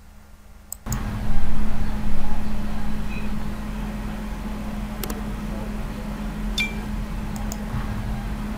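Steady hum and hiss that cuts in suddenly about a second in, loudest over the next second or so. A few sharp clicks follow later on.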